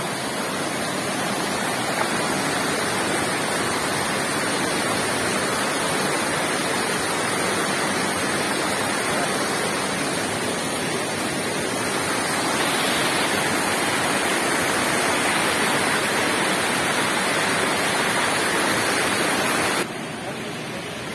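Steady rush of hot-spring water pouring over a small falls. It grows a little louder about two-thirds of the way through and drops suddenly near the end.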